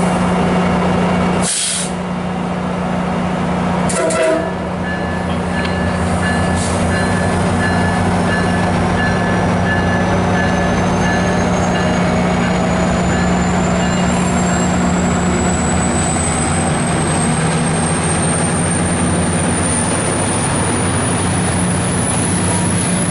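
MARC commuter train's diesel locomotive running with a steady low engine hum. Two short hisses come about one and a half and four seconds in. A high whine then rises slowly in pitch as the train pulls away from the platform.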